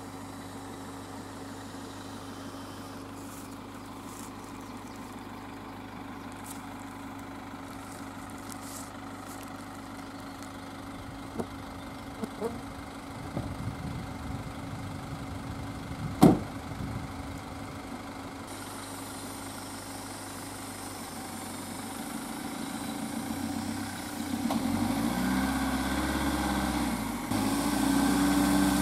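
GAZ Sobol 4x4 van's engine idling steadily, with one sharp knock about halfway. It then revs harder and unevenly through the last third as the wheels spin in deep mud.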